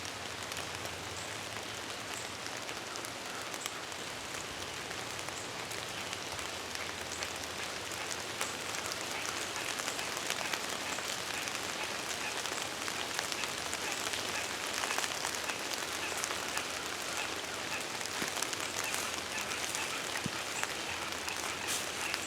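Steady rain falling: an even hiss of many small drop ticks.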